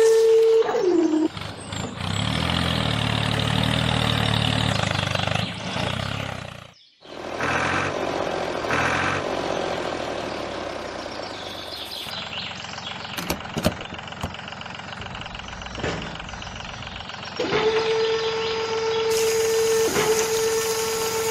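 Vehicle engine sounds mixed with a steady high whine. The whine glides down and stops within the first second and returns a few seconds before the end. Between them are a louder pitched engine stretch, a brief drop-out and a few sharp clicks.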